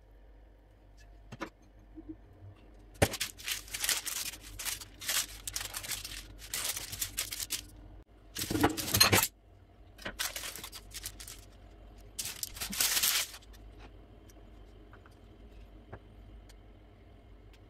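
Baking paper rustling and crinkling in a run of irregular bursts as a filled egg sheet is rolled up in it, the loudest burst a little under halfway through.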